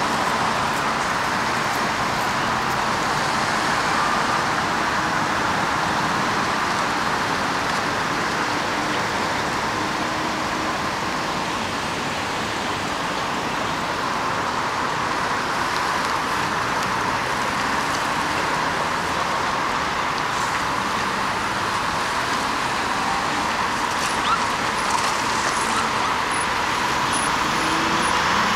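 Steady freeway traffic noise: cars and trucks running on the highway and the overpass, a continuous wash of tyres and engines that grows a little louder near the end.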